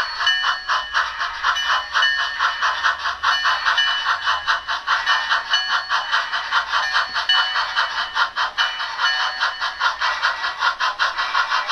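Steam exhaust chuffs from a Soundtraxx Tsunami sound decoder in an On30 model steam locomotive, coming through the model's small speaker as a fast, steady beat of about four chuffs a second.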